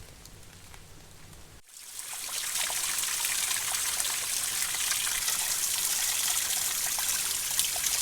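Small mountain stream trickling and splashing over rocks, a steady hiss full of fine drips and splashes that comes in suddenly about two seconds in after a quieter stretch.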